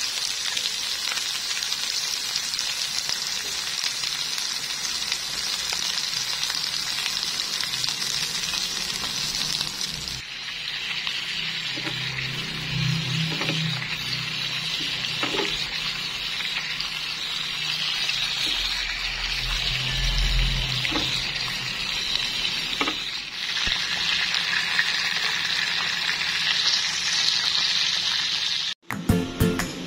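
Bone-in steak frying in foaming butter with garlic cloves in a nonstick frying pan: a steady sizzling hiss, with a few soft thumps midway. Music comes in at the very end.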